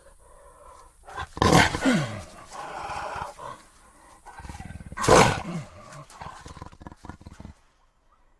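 Jaguar roaring: two loud calls about three and a half seconds apart, each falling in pitch, with rough growling between them.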